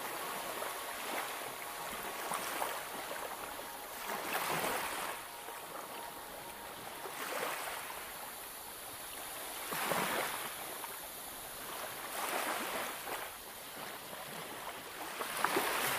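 Small sea waves washing onto a beach, the surf noise swelling every two to three seconds.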